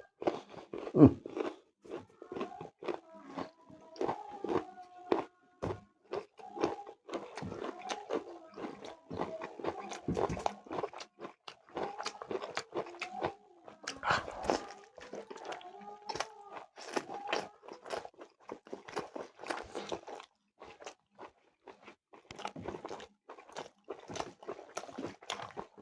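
Close-miked eating: biting and chewing chicken leg with curry and rice, a steady run of irregular wet mouth clicks, smacks and crunches. A faint wavering pitched sound runs underneath for most of the stretch.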